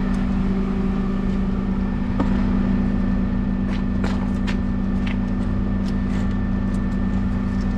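Engine of the lifting machine running in a steady drone under load as it hoists a truck body off its frame on straps, with a few light clicks and ticks in the second half.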